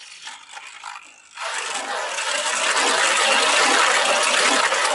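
A Betromoth B2 Beyblade Burst spinning top's Hold driver grinding against the plastic stadium floor. The really loud scraping starts suddenly about a second and a half in and holds steady: the sign of the driver gripping the stadium.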